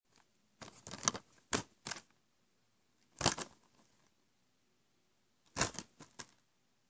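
Plastic Blu-ray case being handled: a series of short clicks and rustles in clusters, around a second in, at about three seconds, and again near the end.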